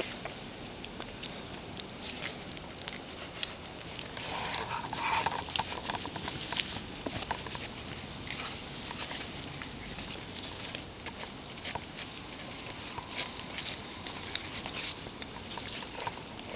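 Rustling and scratchy crackling from young boxer puppies squirming in grass while a hand handles them, with a louder stretch of rustling about four seconds in.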